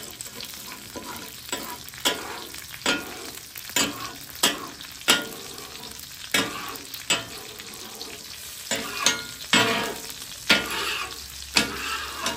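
Metal spatula scraping across a hot steel flat-top griddle in repeated short strokes, about one a second, to clear breadcrumbs and oil off the cooking surface. Oil sizzles steadily underneath.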